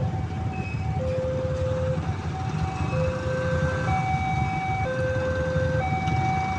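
Railway siren sounding a two-tone hi-lo pattern, switching between a low and a high note about once a second, over a steady low rumble.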